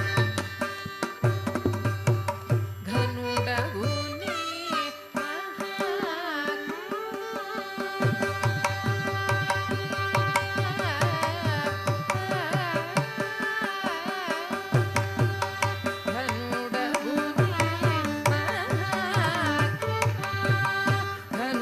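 Carnatic music in raga Begada: a mridangam plays a dense rhythmic accompaniment under a gliding, ornamented melodic line, the drum dropping out for short stretches now and then.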